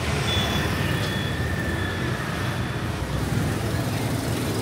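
Steady noise of busy city street traffic, many engines running together with no single vehicle standing out.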